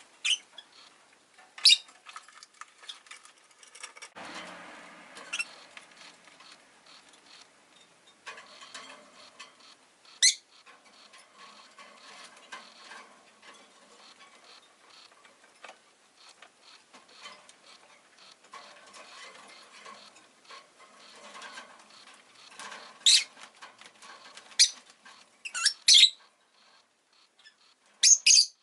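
Rosy-faced lovebirds giving short, sharp, high chirps every few seconds, with several close together near the end, over a soft, continuous rustling and pattering.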